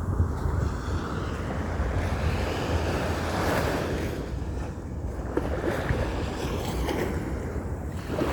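A steady rushing noise with a low rumble of wind on the microphone, swelling a little about three seconds in.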